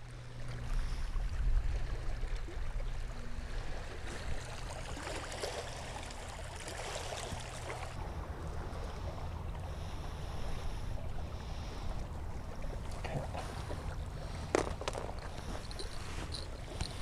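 Steady outdoor noise of wind on the microphone and water lapping at the shore, with one sharp click about fourteen and a half seconds in.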